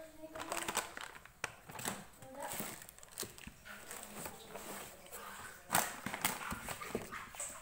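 Bare feet slapping and splashing through shallow floodwater on a tiled floor, in irregular steps, with a sharper knock about six seconds in.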